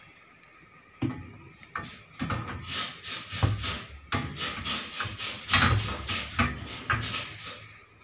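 Chrome wire basket being fitted onto the metal frame of a magic corner pull-out unit: repeated metal clinks, knocks and rattles starting about a second in.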